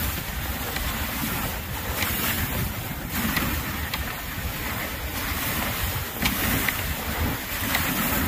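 Dog sled runners hissing over snow under a steady rumble of wind on the microphone, with a few faint clicks.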